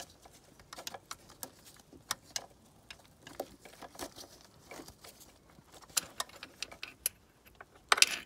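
Scattered light clicks, taps and scrapes, irregular in timing, as a metal flywheel locking pin is worked and jiggled up into the locking bore of a BMW N46 engine block, mixed with sleeve and hand rustle against the phone. A louder cluster of clicks comes near the end.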